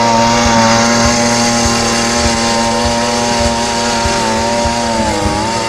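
Gas-powered ice auger's engine running at high speed while it bores a hole through lake ice. Its pitch sags briefly near the end and comes back up.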